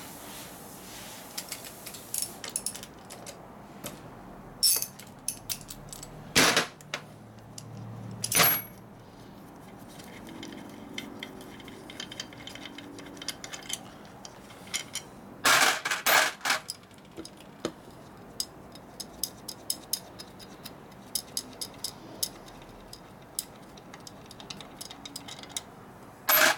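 Ratchet wrench clicking in quick runs and metal parts clinking against a Borg Warner T5 transmission case as its tail housing bolts are taken out, with a few louder metal clanks about six, eight and sixteen seconds in.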